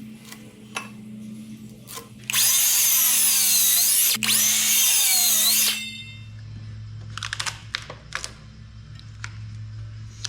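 Power tool cutting into a wooden 6x6 post to notch it, running in two loud stretches with a brief break between them, its pitch dipping and rising under load. A few light knocks follow about two seconds after it stops.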